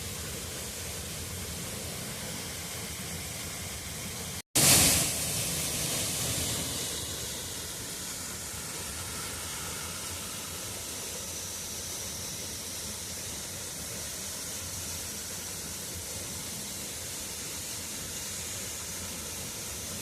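Waterfall, a steady rush of falling water. It breaks off for an instant about four and a half seconds in, comes back louder and eases down to the steady level over the next couple of seconds.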